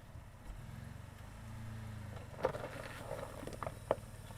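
Pickup truck engine running at low revs, swelling slightly about a second in, with a few short knocks and clicks.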